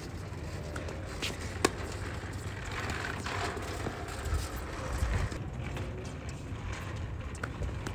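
A tennis racket strikes the ball once with a sharp pop about one and a half seconds in, with a few fainter ball clicks around it. Shoes then scuff and step on the hard court over a steady outdoor background noise.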